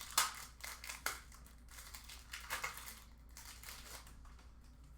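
Faint crinkling and rustling of trading-card packs and cards being handled, with a few sharper crackles in the first three seconds, quieter after.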